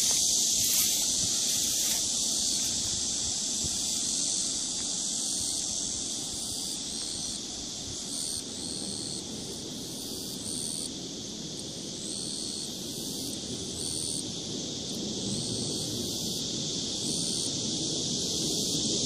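Summer insects droning in a steady high pitch, with a faint pulsing about once a second. A low rumble underneath grows louder near the end.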